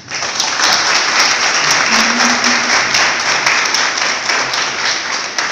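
An audience applauding: dense clapping that starts suddenly and tapers off slightly near the end.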